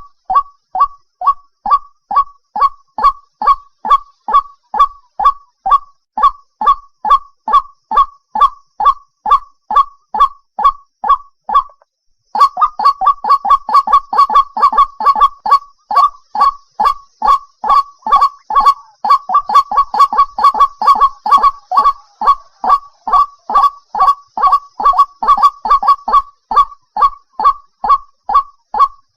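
White-breasted waterhen call, a short downward-sliding note repeated about twice a second. From about twelve seconds in the notes come faster and crowd together, then settle back to the slower pace near the end.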